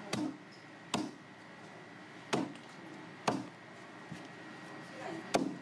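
Large chef's knife chopping through monkfish onto a wooden chopping block: five sharp chops at uneven intervals, roughly a second apart.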